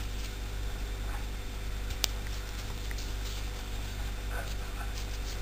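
A steady low electrical hum with faint soft rustles and ticks from a metal crochet hook working yarn, and one sharp click about two seconds in.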